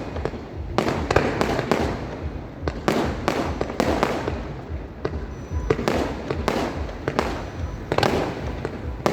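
Fireworks display: aerial shells bursting in a steady run of sharp bangs, one to three a second, each trailing off in an echoing rumble.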